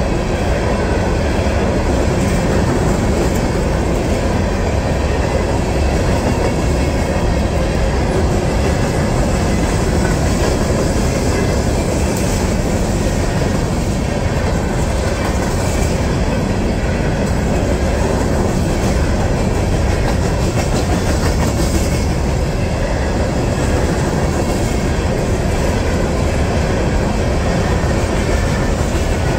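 A CSX freight train's open hopper cars rolling past through a road grade crossing: a continuous, loud rumble of steel wheels on rail.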